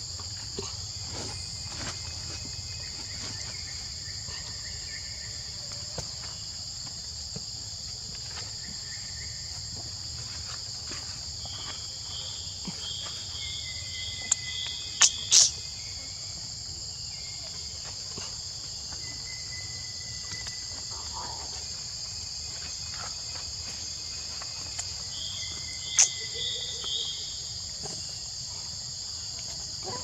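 Steady high-pitched drone of an insect chorus, unbroken throughout. A few short chirps and sharp clicks come through it around the middle and again near the end.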